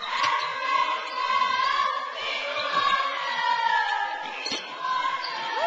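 Basketball crowd in a gym shouting and cheering during play, many voices blending into a continuous din. A single short knock about four and a half seconds in.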